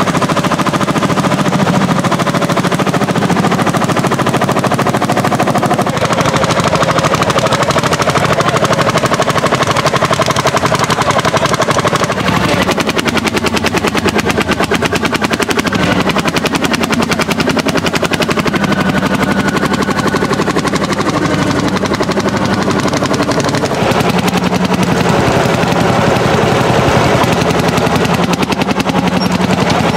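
Single-cylinder two-stroke hot-bulb engines of vintage Landini tractors running hard while pulling ploughs: a loud, rapid, even popping exhaust beat like a machine gun. The beat changes pitch at a few points as different tractors come in.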